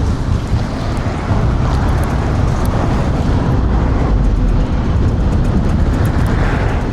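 Steady wind rush buffeting the rider's clip-on microphone, with road noise, while riding an electric scooter at speed in strong wind. It grows a little louder about a second in.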